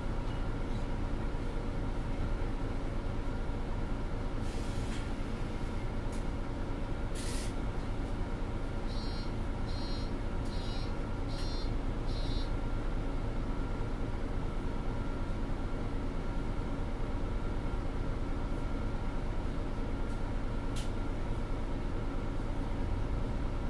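Mercedes-Benz NG 265 articulated city bus with a ZF Ecolife automatic gearbox, its engine running steadily, heard from inside the passenger cabin. About halfway through come five short high beeps roughly two-thirds of a second apart, and a few single clicks are scattered through.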